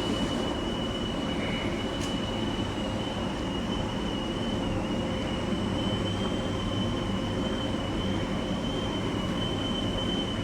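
Coin-operated laundromat machine running: a steady mechanical rumble with a thin, high, slightly wavering whine on top.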